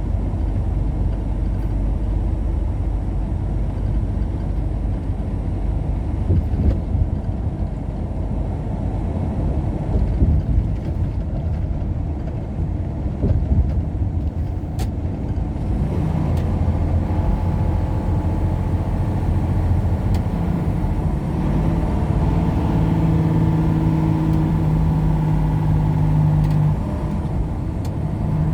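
Vehicle driving at highway speed: steady low road and engine rumble. A steady engine hum comes up about halfway through and is strongest a little before the end.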